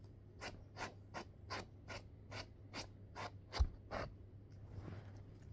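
A hand rubbing a poodle's curly fur on its head and ears in quick repeated strokes: about ten scratchy swipes at roughly two and a half a second, with a soft bump near the last few, stopping about four seconds in.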